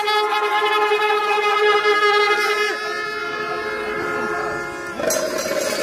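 Kombu, the curved brass horns of a Kerala temple ensemble, blowing long held notes together. A new, higher note comes in near the end.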